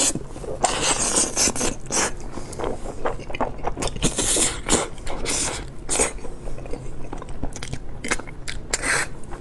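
Close-miked eating of braised trotters: wet chewing, lip-smacking and sucking in irregular quick bursts as soft skin and meat are bitten and pulled from the bone.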